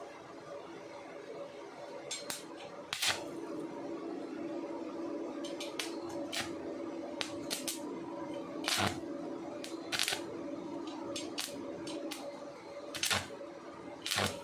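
Steady electrical hum from the EDON MIG 170S welding machine, louder after a sharp click about three seconds in, with scattered clicks and knocks of handling.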